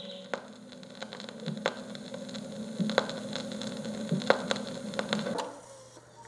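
Steady low electrical hum and hiss with scattered faint clicks and ticks, cutting off about five and a half seconds in.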